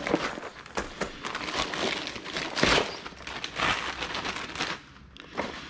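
Plastic poly mailer bag crinkling and crackling as it is torn open and a small boxed item is pulled out of it, with the crinkling fading near the end.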